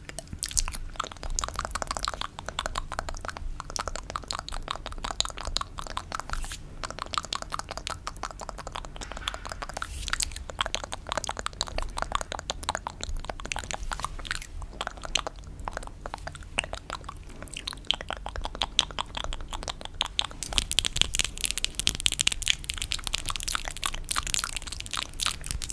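Close-miked ASMR fingernail tapping and scratching on a hard surface: a dense, fast patter of small crisp clicks, turning brighter and scratchier near the end.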